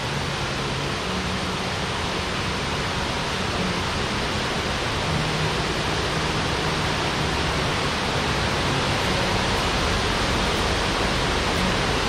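Waterfall rushing over rocks: a steady, even roar of falling water.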